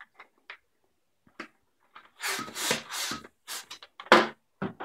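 A hand balloon pump inflating a small yellow latex balloon, with a quick run of airy pump strokes about two seconds in. A single loud, sharp sound follows about four seconds in.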